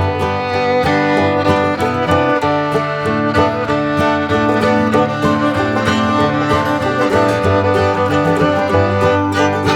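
Background music: an upbeat bluegrass or country tune with fiddle and guitar.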